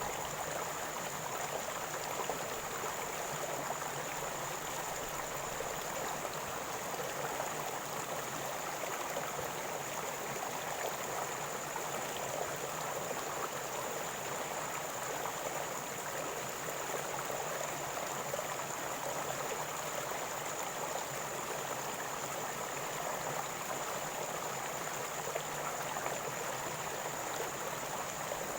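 River water flowing and gurgling steadily over stones, an even rushing noise that does not change.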